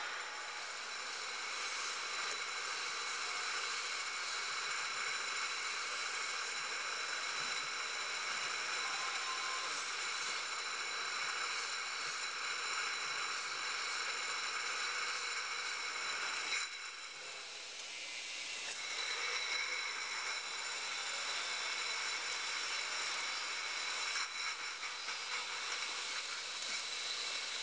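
Retort crate loading machine running, with its conveyors moving glass jars: a steady hiss-like machine noise with several steady high whining tones. The noise drops for a couple of seconds about two-thirds of the way through, then returns.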